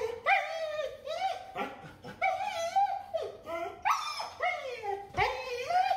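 Siberian husky screaming and yowling in a back-to-back string of short calls that rise and fall in pitch, protesting while her undercoat is brushed out.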